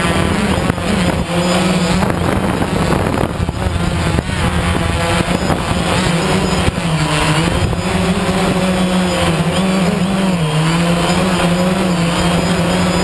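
An engine running steadily, its pitch dipping slightly a couple of times.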